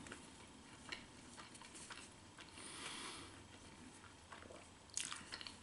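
Faint chewing of a mouthful of burger with crunchy breaded chicken: soft, scattered mouth clicks and smacks, a little louder near the end.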